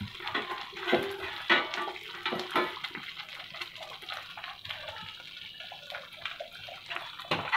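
Moong dal with spinach simmering in an open pan, thick bubbles popping and plopping irregularly.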